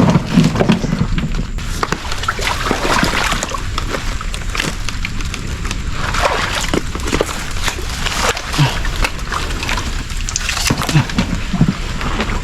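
Water sloshing and splashing in irregular bursts, with crackles throughout.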